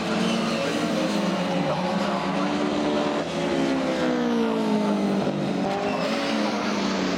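Engines of several classic Mini racing cars running hard, several engine notes overlapping, their pitches rising and falling, with a brief drop about three seconds in.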